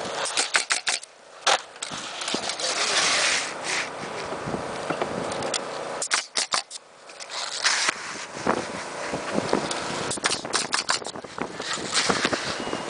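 Pneumatic coil roofing nailer driving nails into asphalt shingles: sharp shots fired in quick runs, near the start, about six seconds in, and again from about ten seconds on, with a noisy rustle around three seconds in.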